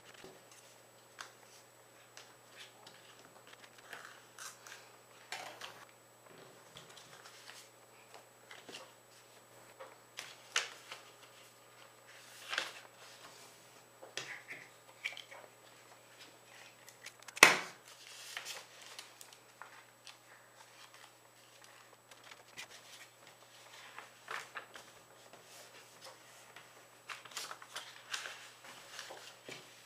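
A sheet of paper being folded and creased by hand: scattered rustles and crinkles, with one sharp, much louder snap a little past halfway.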